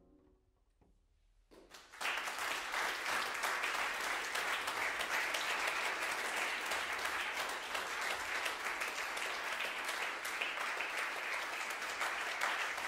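A brief hush as the last piano notes die away, then a concert audience breaks into applause about two seconds in and keeps clapping steadily.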